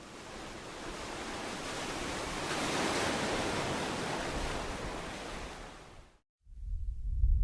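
Sound effect: a rush of hiss-like noise that swells to a peak about three seconds in and fades away by about six seconds, like a wave or a slow whoosh. After a brief gap, a low rumble starts to build near the end.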